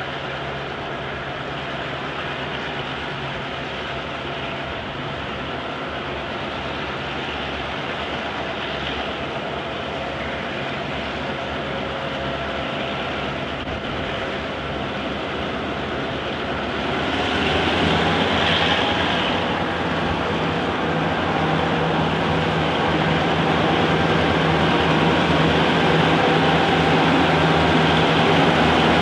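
EMD-engined diesel locomotives, led by ex-Victorian Railways S-class S303, running as they pull a loaded grain train slowly through a station; the steady engine drone grows louder as the lead unit approaches, rising noticeably about two-thirds of the way in.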